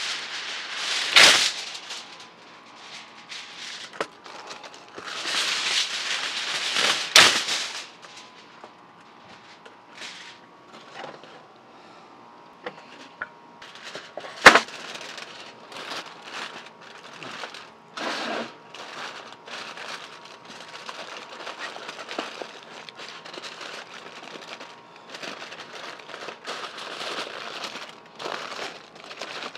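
Aluminium foil pulled off the roll and torn, in two loud rips near the start, then crinkled and folded as it is wrapped around smoked beef ribs. One sharp click about halfway through is the loudest sound.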